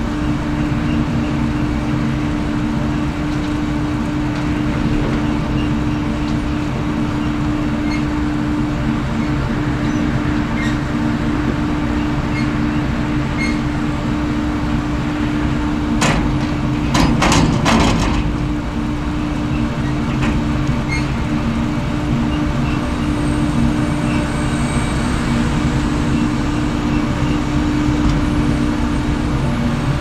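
John Deere tractor's diesel engine running steadily while potatoes tumble out of the raised Krampe tipper body onto the heap. A short cluster of sharp knocks a little past halfway.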